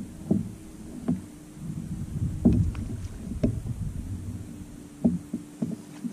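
Irregular knocks and thumps on a plastic fishing kayak, about six in all, as an angler works a rod and reel, with a rumble in the middle and a faint steady hum underneath.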